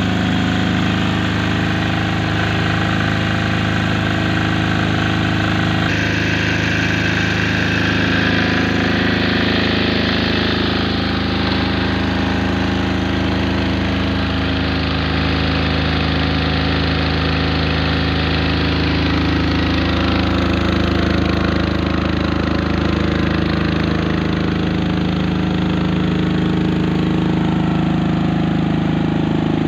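Maestro MT 10000 MS enclosed generator set running steadily on test at a constant speed. The sound turns a little sharper about six seconds in.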